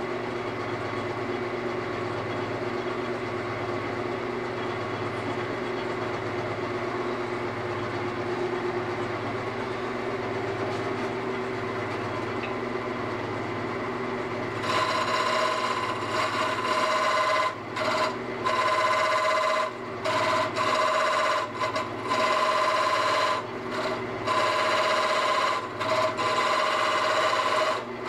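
Wood lathe running with a steady motor hum; about halfway through, a turning tool starts cutting the spinning workpiece in a series of short passes, each a louder, pitched scraping that stops and starts again.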